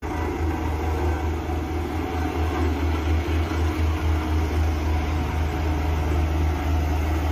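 Bomag single-drum road roller running as it rolls over loose gravel, its diesel engine making a steady, slightly pulsing deep drone.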